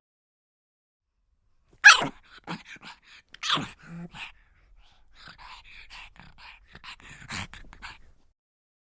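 A pug dog makes two loud, sharp sounds, about two seconds in and again a second and a half later, then a run of short, quieter whimpering cries.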